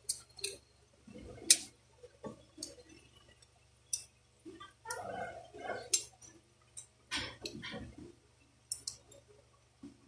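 Metal and plastic parts of a Daisy Power Line 1200 CO2 pistol clicking and scraping as it is reassembled by hand, the spring fitted over the barrel. Irregular sharp clicks, the loudest about a second and a half in, with rubbing between them.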